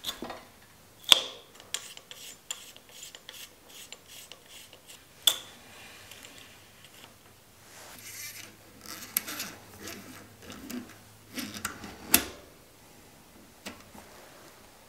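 A bicycle brake cable and its housing being fitted to an Avid brake lever and mechanical disc brake caliper: soft rubbing and scraping of cable and metal parts, broken by a few sharp metal clicks. The loudest clicks come about a second in and near twelve seconds in.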